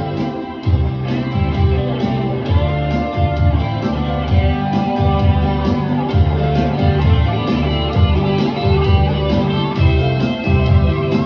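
Music: an instrumental guitar passage with a rhythmic bass line and no singing.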